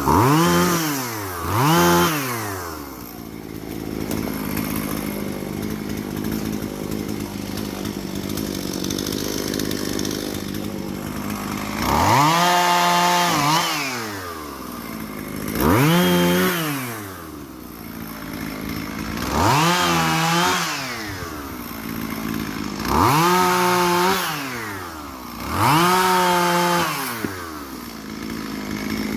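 Two-stroke chainsaw idling, revved up seven times in short bursts: twice at the start, then a long gap at idle, then five more bursts a few seconds apart, each climbing in pitch, holding and dropping back to idle.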